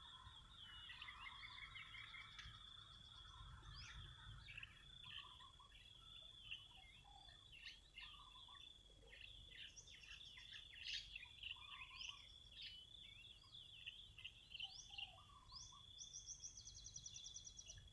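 Faint outdoor birdsong: many short, quick chirps and whistles from small birds, with a rapid trill near the end, over a steady thin high tone.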